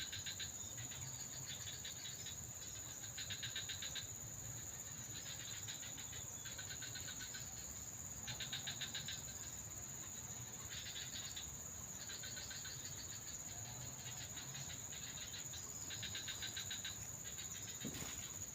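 Insects calling in a swamp: a steady high-pitched whine runs throughout, while a chorus of rapid chirping trills comes in short bursts about every second or two.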